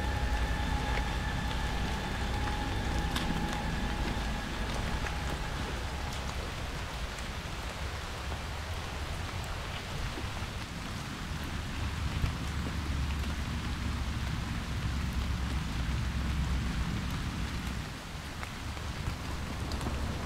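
Steady hiss of water with a low rumble underneath and a few faint clicks; a faint steady tone dies away about six seconds in.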